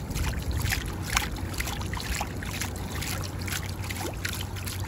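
Seawater splashed by hand, over and over, onto the head and gills of a weakened black sea bream to revive it: a quick, irregular run of small splashes and drips.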